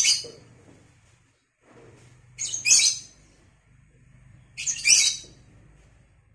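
A lovebird giving shrill, high-pitched chirping calls, three short bursts about two seconds apart.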